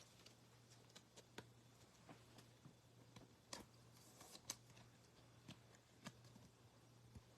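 Near silence over a low steady hum, broken by faint scattered clicks and light rustles of trading cards being handled, a little louder about halfway through.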